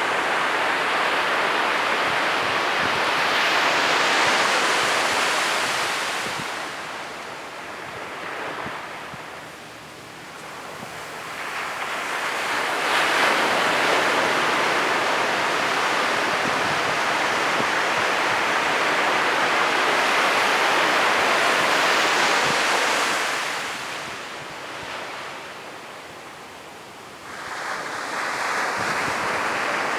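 Ocean surf breaking on a beach: a long rush of churning white water that eases off to a lull about a third of the way in, surges again for a long stretch, and drops back once more before the next wave comes in near the end.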